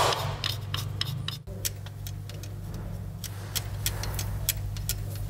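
Scattered light metallic clicks and taps from gloved hands handling tools, bolts and the timing-chain parts of an engine under repair, over a steady low hum.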